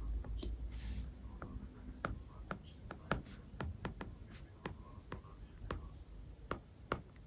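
Light, irregular clicks and taps, a few each second, in a quiet room.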